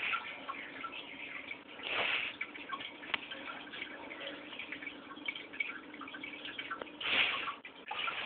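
Aquarium water trickling and dripping, with small bubbling ticks over a faint steady low hum. Two brief louder rushes of water noise come about two seconds in and again near the end.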